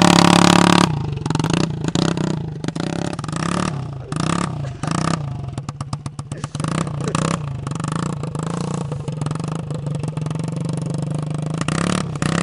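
Romet 777 scooter engine running with its exhaust removed, the open port giving a loud, raw clatter of firing pulses. It is loudest at the very start, is blipped several times over the next few seconds, then runs more steadily.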